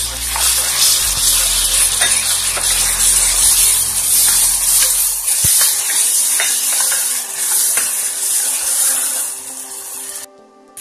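Chopped onions sizzling steadily in hot cooking oil in a pressure cooker while a spoon stirs them. The sizzle cuts off sharply just before the end.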